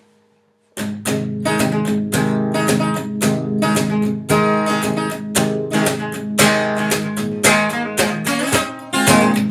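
Acoustic guitar strummed in a steady rhythm, chord strokes starting just under a second in after a brief near-silence.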